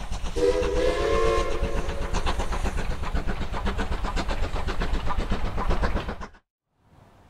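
A train rolls past with its wheels clattering, and its whistle sounds once for about a second, half a second in. The sound cuts off suddenly about six seconds in.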